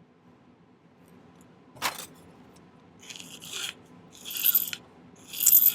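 A sharp click, then three rasping strokes of a hand file on sterling silver wire, about a second apart, taking a little more off the piece.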